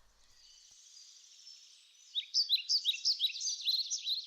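A songbird singing: a faint high twittering, then from about two seconds in a loud, fast run of sharp falling notes, about five a second.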